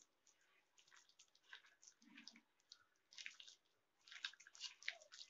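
Faint, intermittent wet squishing and crackling of a hand kneading chicken pieces into a thick marinade of masala paste, curd and flour, with no water added, in a stainless steel bowl; it gets busier after about three seconds.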